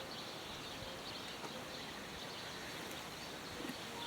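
Faint, steady outdoor background noise in a garden, with no distinct event.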